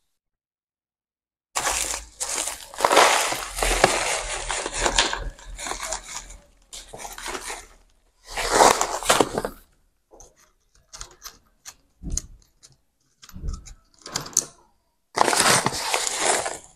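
A stiff kraft-paper pouch of cactus and succulent substrate crinkling and rustling as the gritty mix is poured from it into a small plastic pot. In between come scattered small taps and clicks of handling, and near the end another burst of crinkling as the pouch is set down.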